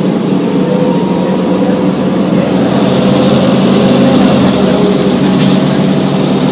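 Cummins M11 diesel engine of a 1999 Gillig Advantage transit bus running steadily, growing a little louder about halfway through. A brief click is heard near the end.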